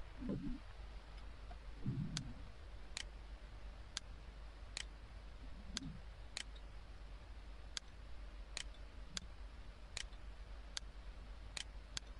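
Computer mouse clicking: about fifteen faint single clicks at irregular intervals, starting about two seconds in, with a few soft low thuds among them.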